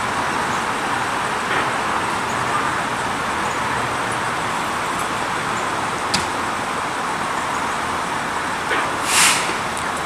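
Steady noise of road traffic and idling vehicles, with a short, sharp hiss about nine seconds in.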